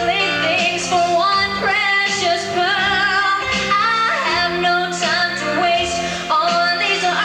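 A song: a singing voice carrying a melody with wavering vibrato on held notes, over steady instrumental backing.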